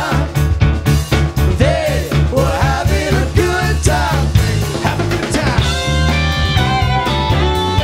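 Live rock band playing electric guitars, keyboard, bass and drums, with two-voice sung vocals. The singing stops about five seconds in and gives way to instrumental playing with held guitar notes.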